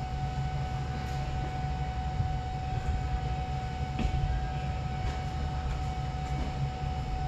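Steady low rumble of a Kyoto Subway Tozai Line train heard in the underground station, with a thin steady hum over it and a faint click about four seconds in.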